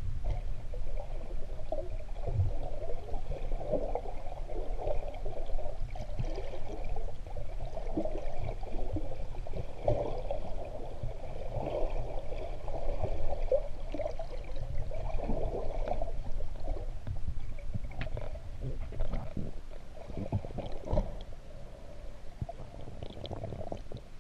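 Muffled underwater water noise around a submerged camera: sloshing and gurgling that swells and fades irregularly over a constant low rumble, with a few faint clicks.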